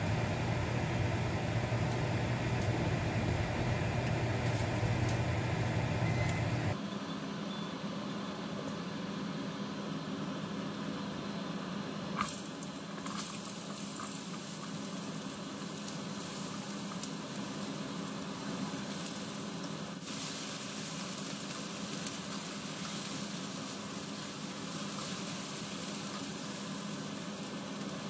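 Diced potatoes frying in oil in a skillet: a steady sizzle that grows stronger after a single knock about twelve seconds in, as more potatoes are slid into the pan. A steady low hum at the start stops abruptly about seven seconds in.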